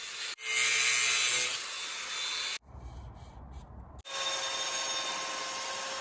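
Power tools working a steel bar clamped in a vise. First a cordless angle grinder grinds it with a loud, bright rasping noise. After a break about two and a half seconds in, a belt sander runs against the steel with a steady whine for the last two seconds.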